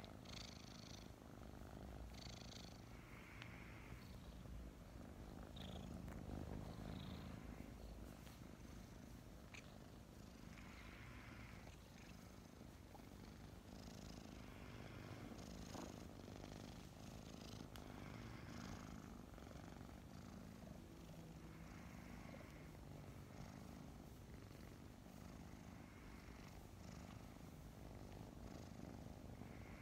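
Five-month-old kittens purring up close: a faint, steady low rumble, with soft breathy noises every second or two.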